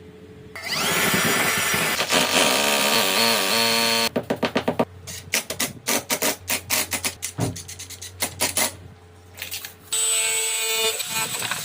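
Power drill running for a few seconds, then a quick, uneven run of knocks and taps.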